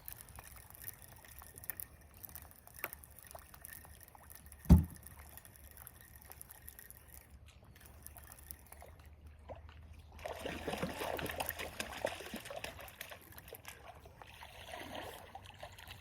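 Water splashing and trickling in short spells, mostly in the second half, with scattered small knocks and one loud dull thump a little under five seconds in.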